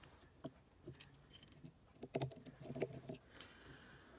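Faint, scattered small clicks and light taps of a precision screwdriver and tiny screws being worked out of the iPhone 6S's battery connector cover.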